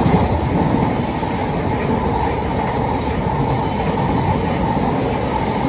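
Class 700 electric multiple unit passing close by, a steady loud rumble and rush of wheels on rail.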